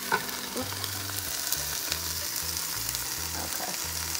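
Diced onions and carrots sautéing in a pot, giving a steady sizzle as a heap of fresh spinach leaves is dropped in on top. A light tap sounds just at the start.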